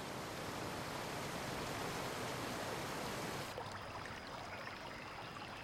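Rushing water of river rapids, a steady splashing hiss. About three and a half seconds in it gives way to a softer, quieter stream running over a small cascade.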